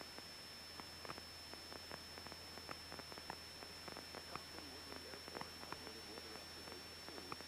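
Faint static of a cockpit intercom and radio audio feed between transmissions: a low hiss and hum under a steady, thin, high-pitched electronic whine, with scattered faint clicks and crackles.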